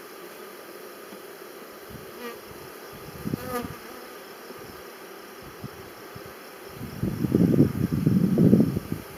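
Honeybees buzzing around an open hive while frames are lifted out. Near the end the buzzing swells loud for about two seconds.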